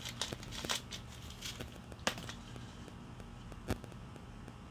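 Packaging being pulled out of a cardboard box: scattered rustling and small clicks, with a sharper click about two seconds in and another near four seconds.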